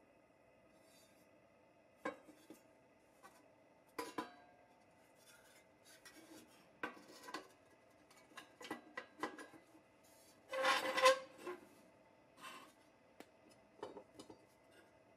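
Vintage Tonka pressed-steel toy truck parts, a frame and a cab, being handled: scattered light metal clicks and taps, with a longer clattering rub of about a second roughly two-thirds of the way through, the loudest sound.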